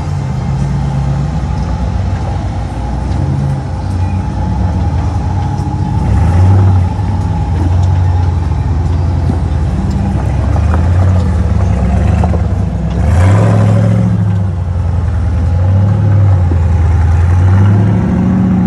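Rock crawler buggy's engine running under load as it crawls over boulders, revving up and easing off repeatedly so its pitch rises and falls. A short, harsh burst of noise stands out about 13 seconds in.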